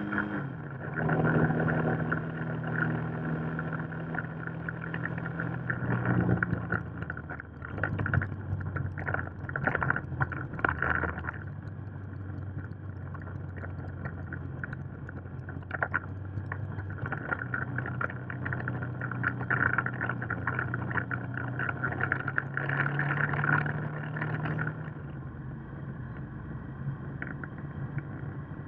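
Motorcycle engine running while ridden on the road, its note stepping down and back up several times with gear changes and throttle. Wind rushes over the microphone at intervals.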